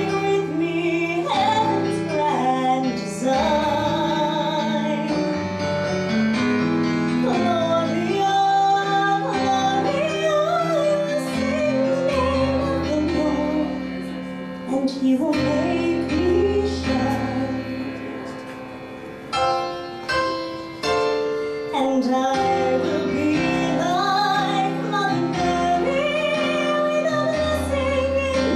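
A woman singing with piano accompaniment, holding some notes for several seconds.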